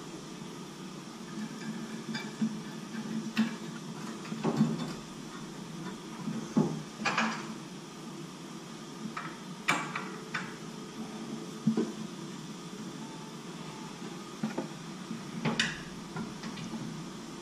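Scattered metallic clicks, knocks and scrapes from hands fitting a light bar and its mounting bracket into a roof rack, about a dozen irregular strikes with short quiet stretches between.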